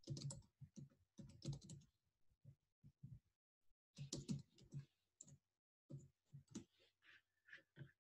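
Faint typing on a computer keyboard: bursts of quick key clicks with short pauses between them.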